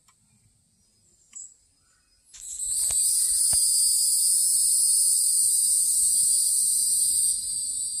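Cicada chorus: after about two seconds of near quiet, a loud, high-pitched buzzing drone swells in and holds steady, easing slightly near the end.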